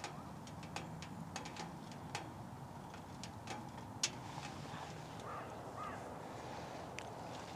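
Wood fire crackling inside a Winnerwell Nomad stainless steel tent stove on its first burn, its air control fully open: irregular sharp crackles and pops over a low, steady hiss of burning.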